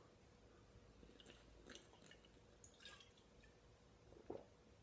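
Faint sips and swallows of wine drunk straight from the bottle: a few soft, wet sounds in near quiet.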